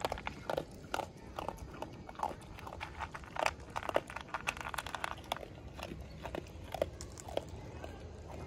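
A dog eating from a plastic bowl: irregular short chewing and clicking sounds, a few each second.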